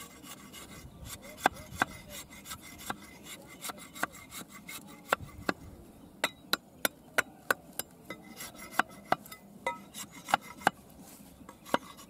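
A small knife shaving and splitting a thin bamboo strip: scraping with many sharp, irregular clicks and cracks of the wood.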